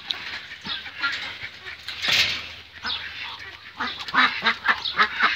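Ducks quacking, a quick run of short calls in the second half, with a brief rush of noise about two seconds in.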